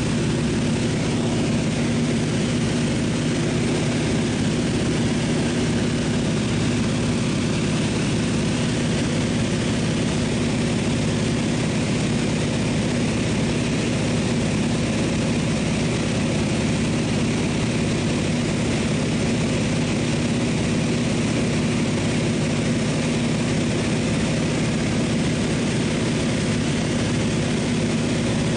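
Seaplane's engine droning steadily in flight, heard from inside the cabin, with an even rush of airflow noise.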